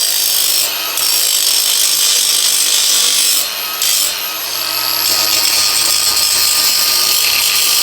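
Grinder grinding down a fresh weld on a steel bar, running steadily with a high whine. The grinding eases off briefly about a second in and again around three and a half seconds in.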